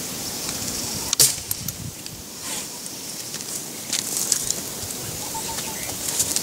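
A single sharp crack about a second in, followed by scattered smaller snaps and rustles as of dry grass and vegetation.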